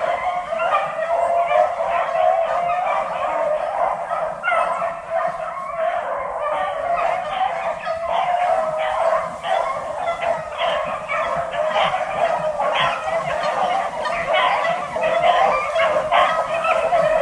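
A pack of beagles baying on a rabbit's trail, many voices overlapping without a break.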